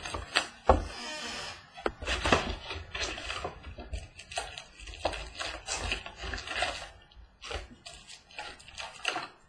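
Trading-card boxes and foil packs being handled and opened: irregular rustling and crinkling with occasional sharp taps.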